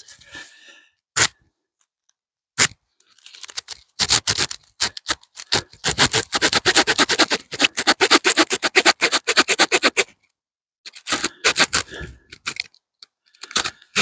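Small saw blade of a Victorinox Swiss Army Camper pocket knife sawing a thin branch by hand in fast, rasping strokes, stopping briefly about ten seconds in and then going on. Two sharp single clicks come before the sawing starts.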